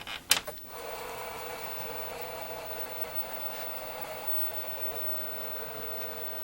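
A TRS-80 Model III's power switch clicks on, then the computer runs with a steady hum from its floppy drives spinning up, over a faint very high whine typical of its CRT monitor.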